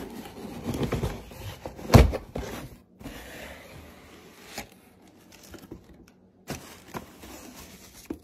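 Cardboard box being opened by hand: flaps rustling and scraping, with scattered clicks and a sharp knock about two seconds in, then quieter handling with another knock later on.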